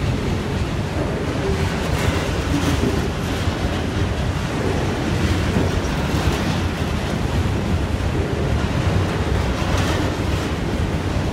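Freight train of covered bogie hopper wagons rolling past close by: a steady rumble of wheels on rail, with wind buffeting the microphone.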